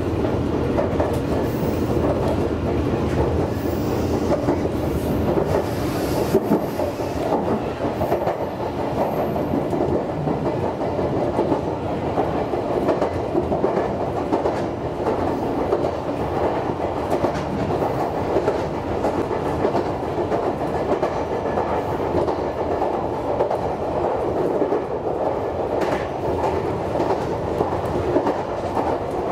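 Meitetsu 6800 series electric train running along the line: steady wheel-on-rail running noise with the clickety-clack of wheels over rail joints, heard from inside the train.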